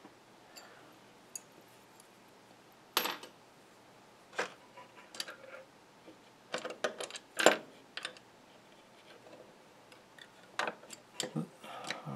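Scattered metallic clicks and clinks of an adjustable wrench against the nut and threaded shank of a metal pinball playfield post as it is fitted and turned, the loudest knock about seven and a half seconds in and a busier run of clicks near the end.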